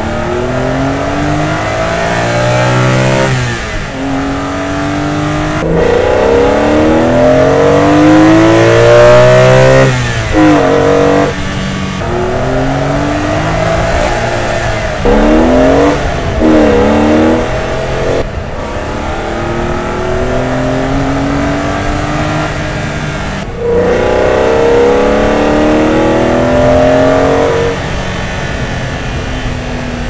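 BMW E46 M3's S54 3.2-litre straight-six, heard from inside the cabin, accelerating hard through the gears. The revs climb again and again, dropping back at each gear change. It runs first with the stock intake, then partway through with the Eventuri carbon-fibre intake fitted.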